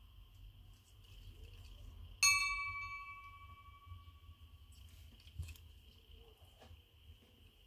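A single bright clink about two seconds in, ringing on for a second or so with several clear tones, as a small hard object is struck. A few faint clicks follow, over a faint steady high-pitched hum.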